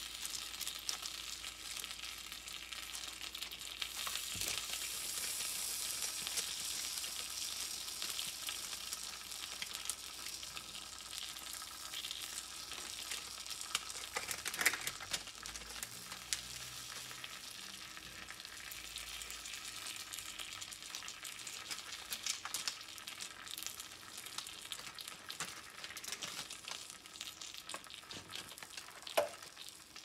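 Takoyaki frying in a hot sandwich cooker on a portable gas stove: a steady sizzling hiss with scattered crackles, and a few sharper pops, one about halfway through and one near the end.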